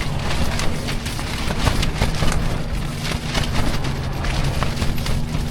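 Strong wind buffeting the microphone: a heavy, unsteady low rumble with irregular crackling gusts.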